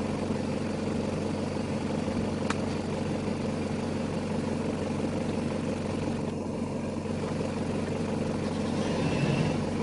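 Safari vehicle's engine idling steadily, with a faint click about two and a half seconds in.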